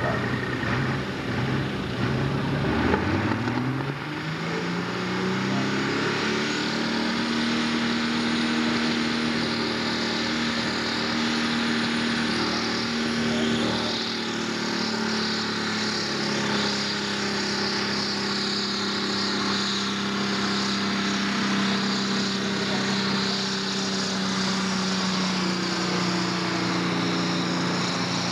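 Pulling tractor's diesel engine revving up hard about three seconds in, then held at high, steady revs through a pull.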